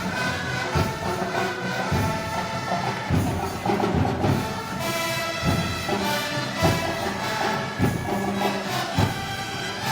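Moros y Cristianos festival band music: a wind band playing sustained melody over a slow, heavy drum beat about once a second.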